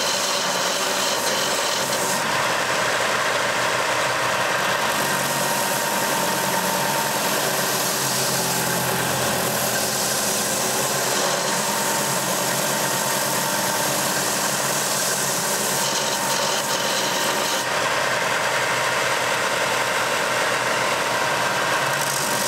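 Benchtop belt sander running steadily while the wooden handle of a meat cleaver is held against the moving belt, sanding it to shape.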